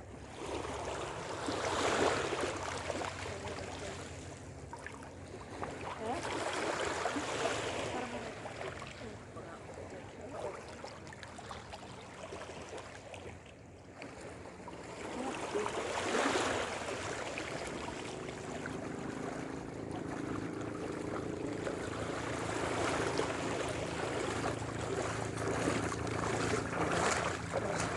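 Seawater washing and splashing in surges every few seconds, over a faint low steady hum.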